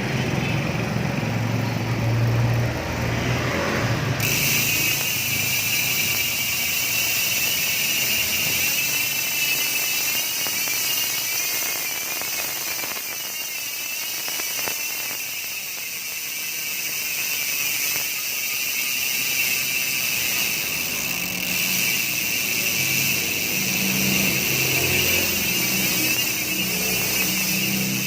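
Freehub ratchet of a Speedone torpedo bicycle hub buzzing as the wheel freewheels: a loud, high-pitched, even buzz of pawl clicks too fast to count apart. It sets in sharply about four seconds in and holds with slight wavering.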